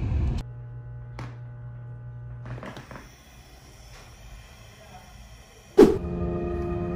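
A steady low electrical hum for about two seconds, then a quieter stretch. A sharp click comes near the end, and soft background music starts right after it.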